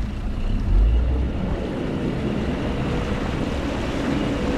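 Honda 150 four-stroke outboard running as the fishing boat gets under way, with water rushing along the hull and wind buffeting the microphone. There is a low thump about a second in.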